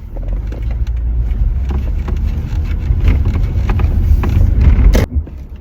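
Car cabin noise while driving: a steady low rumble of engine and road, growing louder, with scattered light knocks and rattles. A sharp click about five seconds in, then the level drops suddenly.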